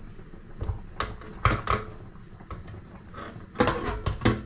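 Metal tongs clinking and knocking against an air fryer basket and the pie dishes inside it, a run of irregular sharp knocks with a cluster of them near the end.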